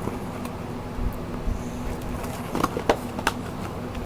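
Hands handling a trading-card box and its foil-wrapped pack: a few sharp clicks and rustles of cardboard and wrapper, bunched around three seconds in, over a steady low hum.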